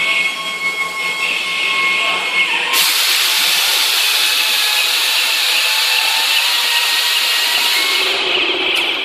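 Factory-hall noise with a steady high whine, then a loud, even hiss that starts suddenly about three seconds in and holds steady to near the end.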